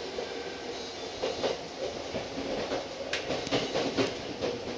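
Tokyo Metro 05 series train running, heard from inside the car: a steady running hum with a cluster of sharp clacks and knocks from the wheels over the rails, loudest in the second half.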